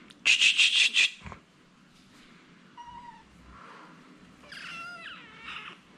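A young kitten, held in a person's hands, gives a loud, harsh cry in a quick run of pulses near the start, protesting at being held. It then meows softly twice, the second meow longer and wavering.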